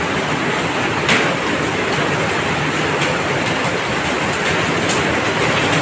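Heavy rain pouring onto paving covered in standing water: a loud, steady hiss of drops splashing.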